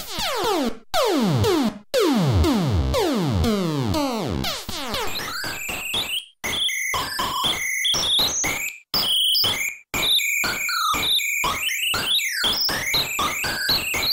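ymVST synthesizer plugin, emulating 1980s sound-chip tones, playing a run of falling pitch sweeps, about one a second. About five seconds in it switches to a fast-stepping chiptune arpeggio of short blips jumping between pitches, with brief gaps.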